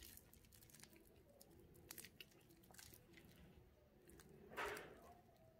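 Faint handling noise of a wristwatch in clear plastic wrap: scattered light clicks, and a brief louder crinkle of the plastic about four and a half seconds in.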